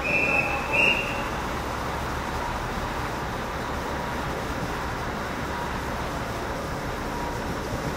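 Two short, high whistle blasts in the first second, then the steady hum of the Hakutaka limited express electric train standing at the platform.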